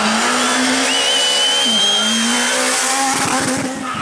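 Rally car engine held at high revs through a gravel corner, with a brief dip in pitch a little under halfway through and a whine above the engine note. A rough crackle comes in near the end.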